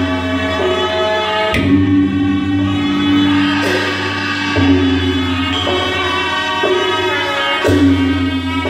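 Live traditional Lanna ensemble music: a reedy wind-instrument melody over a steady low drone, with drum and gong strokes every two to three seconds.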